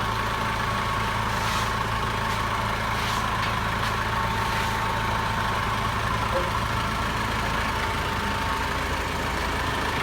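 Nissan 3-ton forklift engine idling steadily.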